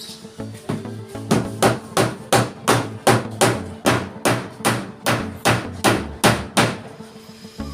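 A hammer striking in a steady rhythm, about three blows a second, some twenty in a row, then stopping near the end. Background music plays underneath.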